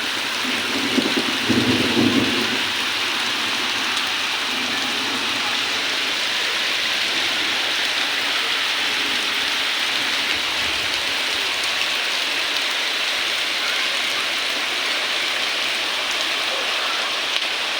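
Heavy monsoon rain pouring down, a steady, dense hiss of rain falling on surfaces, with a brief low rumble in the first couple of seconds.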